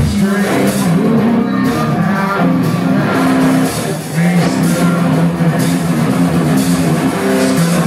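Hard rock band playing live: a distorted electric guitar riff held on sustained low notes over drums with regular cymbal crashes.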